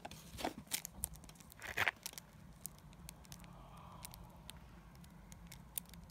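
Faint rustling and light clicks of cardboard and plastic packaging being handled as a trading-card box is unpacked, with two sharper crinkles in the first two seconds.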